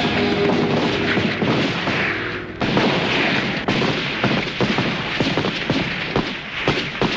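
Battle sound effects of gunfire and booms: a dense noisy rumble with a sudden loud onset about two and a half seconds in, then scattered sharp shots.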